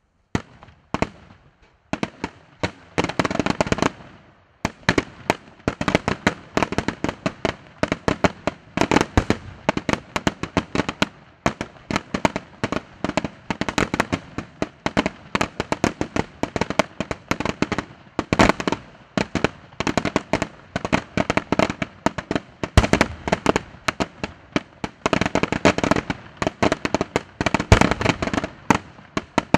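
Aerial fireworks display: a dense, rapid barrage of shell bursts and crackling reports that starts abruptly just after the beginning and keeps going without a break.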